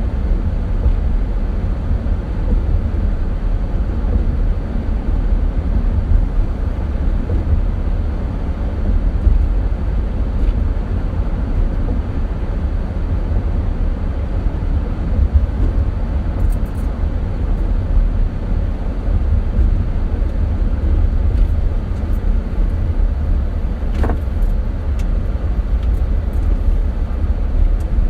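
Car driving over a bumpy road: a steady, heavy low rumble of tyres and running gear, with a few faint clicks and rattles in the second half.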